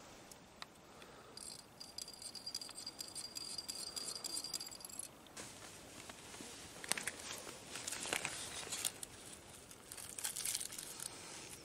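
Quiet small splashes and rustling as a hand rummages in a bucket of water for a live baitfish, with crackly bursts loudest about halfway through. A thin high whine sounds for a few seconds near the start.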